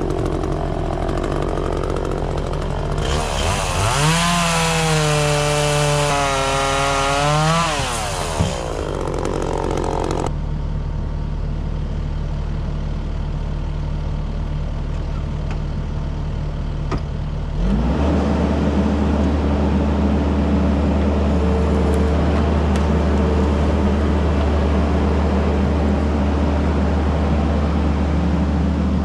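Two-stroke chainsaw idling, then revved up into a cut for about five seconds, its pitch sagging under load and rising again before it drops back. About eighteen seconds in, a deeper, louder engine drone takes over and holds steady.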